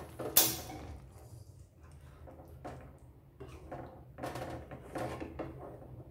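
A spatula, then a spoon, stirring a thick banana-and-peanut gravy in a nonstick frying pan, with irregular scraping and knocking strokes against the pan. The loudest is a sharp scrape about half a second in. A steady low hum runs underneath.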